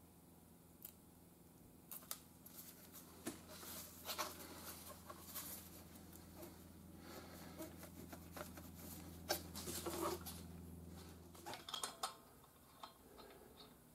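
Faint rustling, crackling and small clicks of gloved hands peeling and pressing adhesive stick-on wheel weights onto the inside of an alloy rim. A few sharp metallic clicks near the end as lug nuts are handled at the wheel hub.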